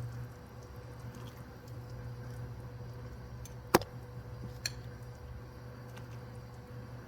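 Chicken pieces being laid into a thick, simmering cream-of-mushroom and rice mixture in a pot: soft squishing, a sharp clink of a utensil against the pot just under four seconds in, and a fainter one about a second later, over a steady low hum.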